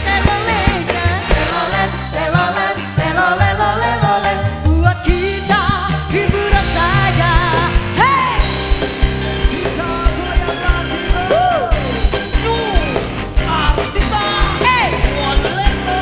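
A woman singing a dangdut song live into a microphone, her voice wavering with ornaments and vibrato, over a dangdut band with a steady drum beat.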